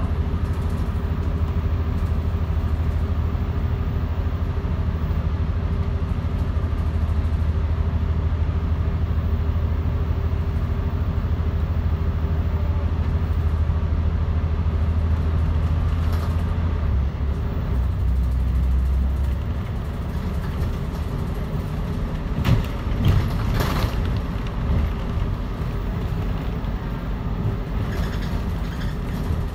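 Volvo D10A-285 diesel engine of a Volvo Super Olympian double-decker bus heard from on board, running under power with a steady low drone. A little over halfway through the drone drops away as the bus eases off, and a few brief rattles follow near the end.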